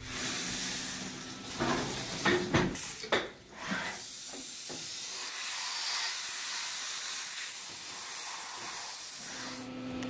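Compressed air hissing steadily out of a blow nozzle, clearing aluminium chips and coolant off a freshly milled connecting rod in the vise. It stops shortly before the end. A few knocks and clattering come in the first few seconds.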